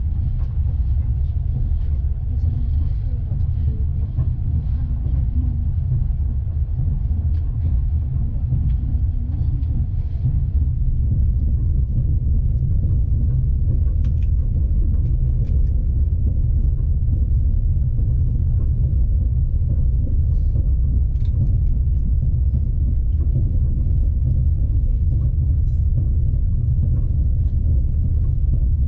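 Steady low rumble of a passenger train running along the track, a little louder after about ten seconds, with a few faint clicks.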